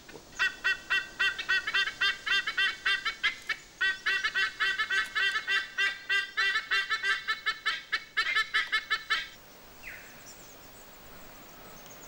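White-bellied sea eagle calling: a rapid run of repeated calls at about four a second, with two short breaks, that stops about nine seconds in.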